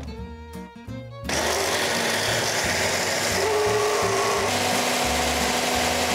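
Countertop blender switching on about a second in and running steadily, pureeing roasted peppers and garlic into a sauce, with background music.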